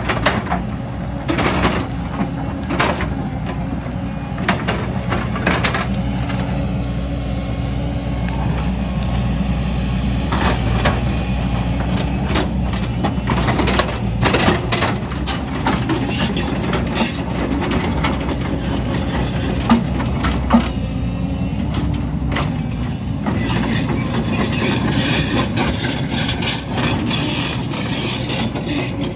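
Excavator's diesel engine running steadily under work, with scattered sharp clanks and knocks, and a whine that rises and falls near the end.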